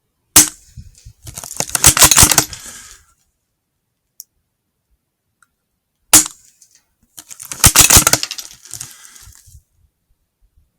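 Two sharp gunshot cracks about six seconds apart, each followed about a second later by a second and a half of dense clattering and rustling.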